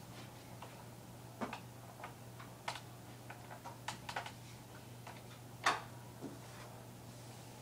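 Irregular light clicks and taps, the loudest about two-thirds of the way in, over a steady low hum.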